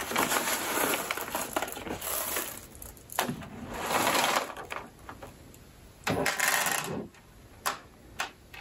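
Zip-top plastic bag of plastic pony beads being opened and handled: crinkling plastic with beads rattling inside, in several bursts, followed by a couple of short clicks near the end.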